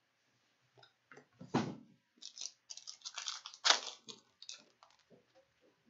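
Hockey trading cards being handled: cardboard cards sliding and flicking against each other in short, irregular rustles and clicks, loudest about one and a half seconds in and again near the middle.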